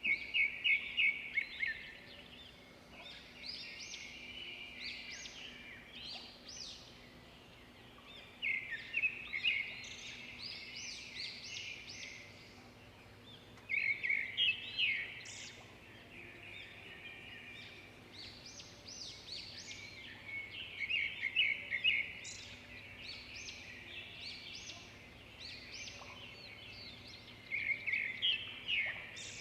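Birdsong: a loud phrase of rapid repeated notes comes back about every six seconds, with softer chirps and calls in between.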